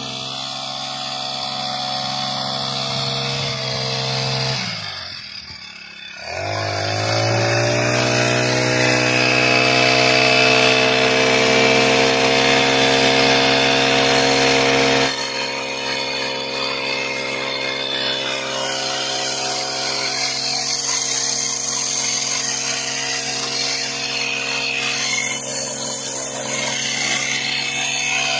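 Nylon-line brush cutter running while cutting back rows of young wheat. Its pitch dips sharply about five seconds in, then revs back up and holds steady. About halfway through the sound drops abruptly to a quieter level.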